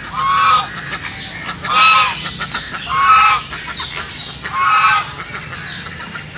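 Flamingos honking: four loud, goose-like calls, about one every second and a half.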